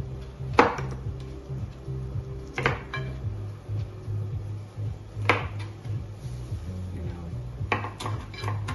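A handful of sharp clinks and knocks from metal cooking utensils, a spatula stirring ground meat in a frying pan and a knife on a wooden cutting board, spaced irregularly a second or more apart, over steady background music.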